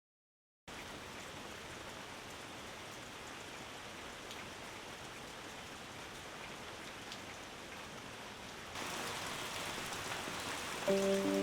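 Rain falling steadily, an even hiss with faint scattered drop ticks, which grows louder about nine seconds in. Music begins just before the end.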